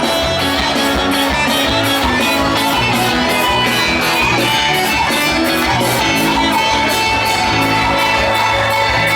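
Loud music with guitar over a steady beat, with no singing.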